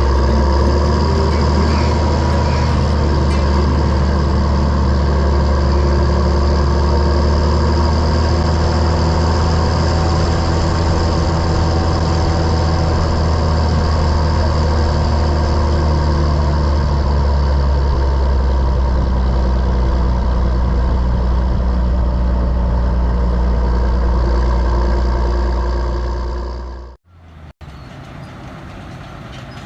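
Large diesel engine of harvest machinery running steadily with a deep, even drone. It dies away about 26 seconds in, and a quieter steady engine noise follows.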